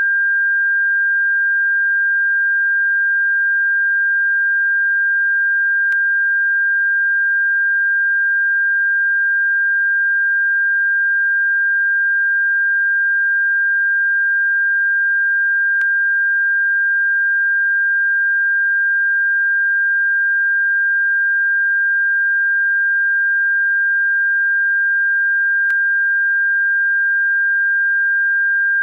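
A synthesized pure sine tone, sold as a bird-repellent frequency, held steady at one high pitch without a break. Faint clicks come three times, about ten seconds apart.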